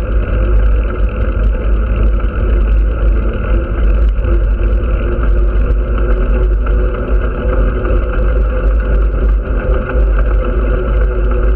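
Wind rushing over the microphone of a camera mounted on a vehicle moving along a road, with steady road and tyre noise and a faint steady hum.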